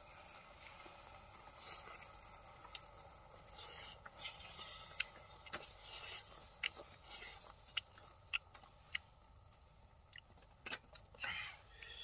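Chopsticks clicking and scraping against a steel cooking pot and bowl while noodles are lifted out, as scattered light clicks and short scrapes.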